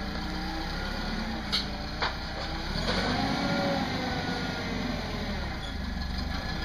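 Forklift engine running, its pitch rising and falling as it moves a loaded pallet, getting louder from about three seconds in. Two sharp knocks come about a second and a half and two seconds in.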